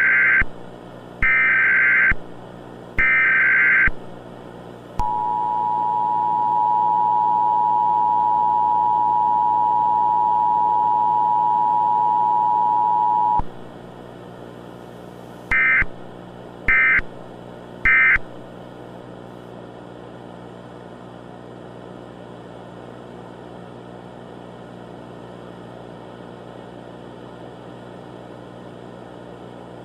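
Emergency Alert System tones. Three chirping SAME data bursts come first, then the two-tone attention signal (853 and 960 Hz) held for about eight seconds, then three short end-of-message data bursts. A faint steady hum runs underneath.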